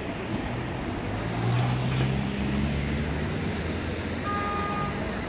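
Street traffic: vans and cars driving past close by, with one vehicle's engine hum swelling and loudest in the middle. A short, steady high-pitched tone sounds near the end.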